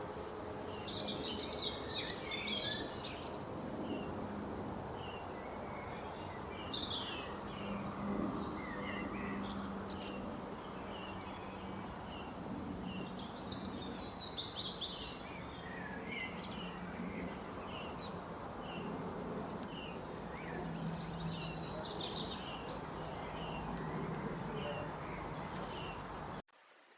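Several birds chirping and calling in a forest: many short, quick notes, some in rapid trills, over a steady background hiss and a low hum. The sound cuts off sharply near the end.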